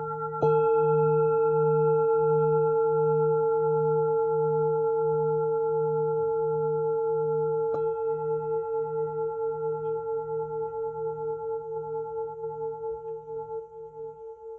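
Jambati Tibetan singing bowl, tuned to a D# fundamental of about 152 Hz with an A# overtone near 450 Hz, struck about half a second in and again about halfway through. It rings with a slowly pulsing, wavering tone that fades toward the end.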